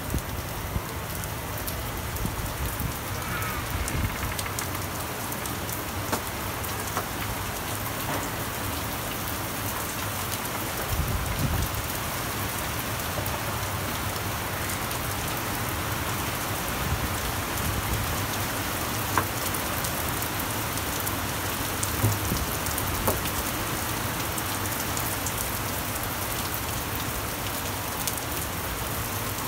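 Heavy rain falling steadily during a thunderstorm, with scattered sharp ticks of drops striking close by.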